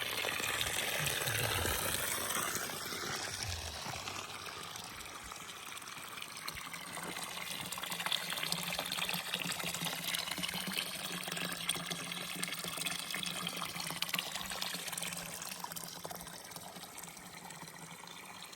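Steady rushing of running water, a continuous noisy wash without a beat.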